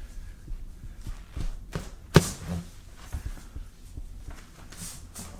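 Soft knocks and taps from handling, with one sharp click about two seconds in.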